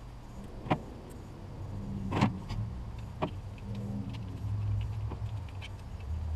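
Sharp metallic clicks and small taps of hand tools working on hose clamps at a car's water neck, over a low hum that grows louder partway through.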